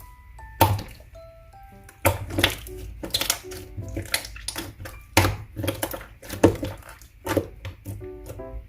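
Light, playful background music with short plinking notes. Over it come repeated short, crackly squishing pops from clear jiggly slime being pressed and poked, the loudest about half a second in and twice more past the middle.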